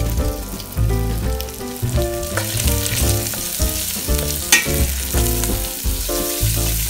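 Sliced andouille sausage sizzling in a stainless steel pot as it fries, stirred with a spoon, with a sharp click from the utensil about halfway through. Background music plays underneath.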